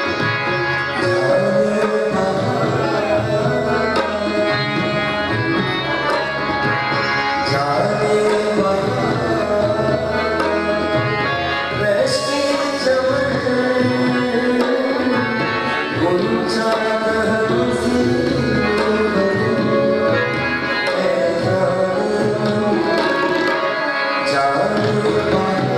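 Live South Asian music: a male voice singing over harmonium, with tabla drumming and a side-blown flute playing along.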